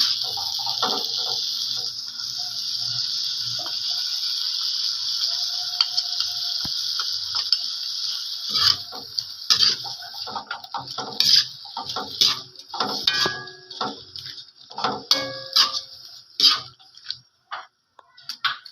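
Shrimp frying in garlic butter in a pan, with a steady sizzle. From about halfway, a cooking utensil knocks and clacks irregularly against the pan as the shrimp are stirred, and the sizzle comes and goes between the knocks.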